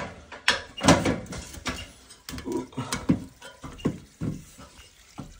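Irregular knocks and clatters of someone climbing a metal loft ladder, feet and hands striking the rungs.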